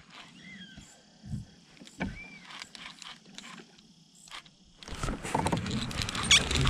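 Quiet retrieve from a kayak with a few short bird chirps and light clicks. About five seconds in, a sudden loud rush of water and rod-and-kayak handling noise sets in as a bass strikes and is hooked.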